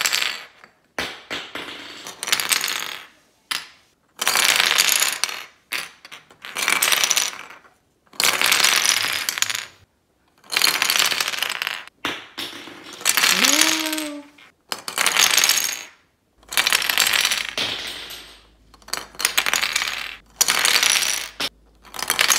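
3D-printed plastic dinosaur pieces toppling off a rocking balance base and clattering onto a glass tabletop, over and over: a dozen or so bursts of clatter, each lasting about a second, with short gaps between.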